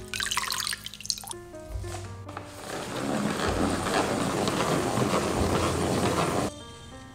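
Fresh herbs splashing as they are swished in a bowl of water, then a hand-worked salad spinner whirring steadily for about four seconds before stopping suddenly, with background music underneath.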